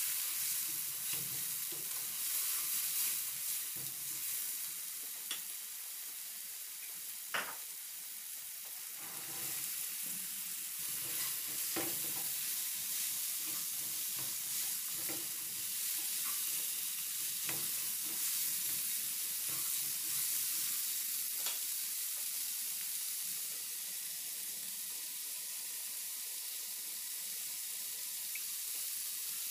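Onion, tomato and spice masala, then boiled chickpeas, sizzling in a non-stick kadai while a spatula stirs it. Now and then the spatula scrapes sharply against the pan.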